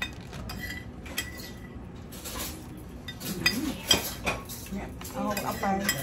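Cutlery and dishes clinking while people eat at a table: scattered sharp clinks of spoons on plates and bowls, the loudest around four seconds in.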